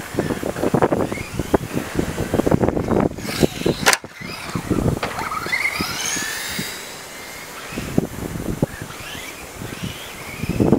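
Radio-controlled buggy driving on concrete: its motor whine rises and falls in pitch as it speeds up and slows, over a rattling clatter of tyres and chassis. One sharp knock about four seconds in, and a quieter stretch near the end as the car moves away.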